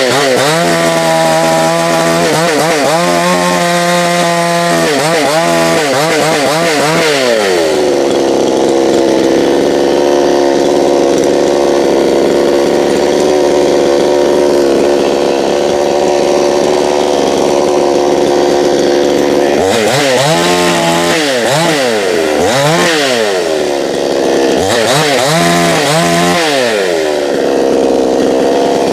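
Gas chainsaw engine running loud at high revs. Its pitch swoops down and back up again and again for the first several seconds and again from about 20 to 27 seconds in, and holds steady at full speed in between.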